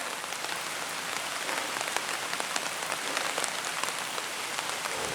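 Steady rain falling, with many separate drops ticking sharply close to the microphone.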